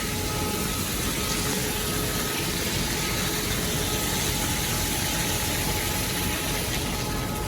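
Steady rushing of water from a fire sprinkler system's flow test, running off into a drain, with a faint steady hum under it.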